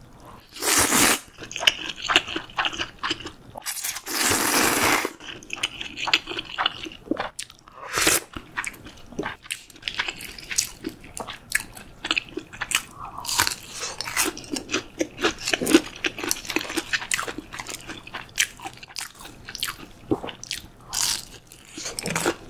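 Close-miked eating: two long slurps of soba noodles in the first few seconds, then repeated crunchy bites and chewing of a breaded pork cutlet (tonkatsu).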